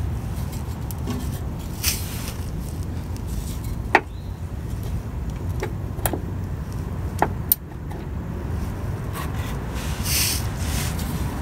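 A few sharp metallic clicks and clinks of a hand wrench working a starter mounting bolt tight, a little at a time, over a steady low background rumble. Near the end comes a brief scraping rustle.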